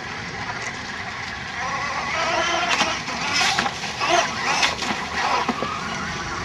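Radio-controlled mono hull boat with twin brushless outboard motors running at speed across the water: a steady electric motor whine.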